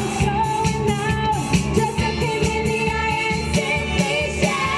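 Two women singing a pop song into microphones over a backing track with a steady beat, one voice at first and both together near the end.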